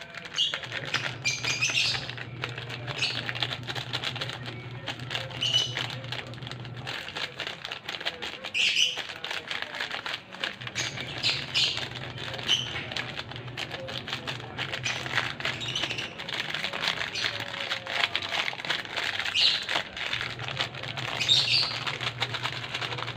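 Plastic Milo powder sachets crinkling and rustling as they are torn open and squeezed out into a bowl, with many small crackles. Birds chirp now and then in the background.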